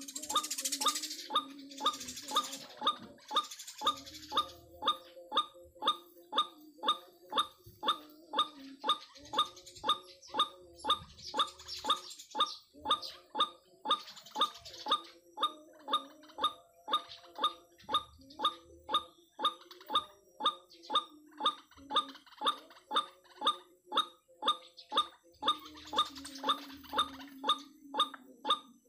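White-breasted waterhen (ruak-ruak) call repeated evenly, about two notes a second, with patches of rustling hiss now and then.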